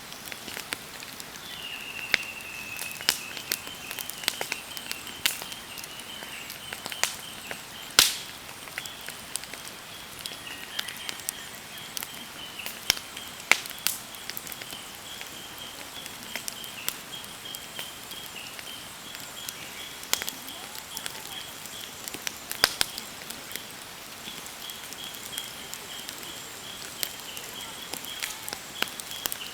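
Wood campfire crackling with irregular sharp pops, the loudest about 8 seconds in, over a thin steady high whistle that starts about a second and a half in.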